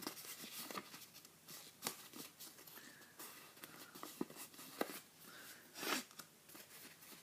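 A square sheet of paper being folded by hand: faint, scattered crinkles and rustles as the sides are brought to the center line, the loudest crinkle about six seconds in.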